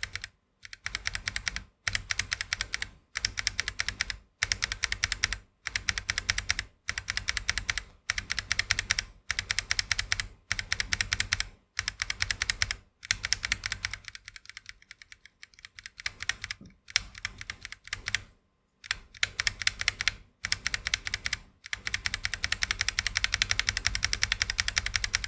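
Mechanical keyboard with Vertex V1 linear switches (nylon PA66 housings) being typed on fast, in runs of rapid keystrokes about a second long with short pauses between, and a longer unbroken run near the end.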